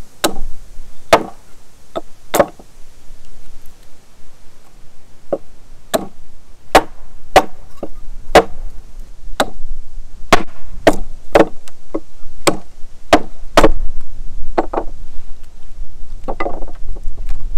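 Wood being chopped for a small campfire: a run of sharp chopping strikes, about one a second, with a pause of a couple of seconds early on. Wind rumbles on the microphone underneath and swells towards the end.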